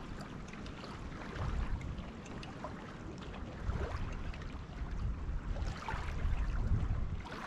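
Small waves lapping against a pebbly lakeshore, with light irregular splashes and wind noise on the microphone.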